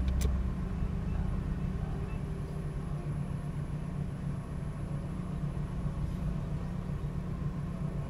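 A road vehicle's engine idling while stopped, a steady low rumble.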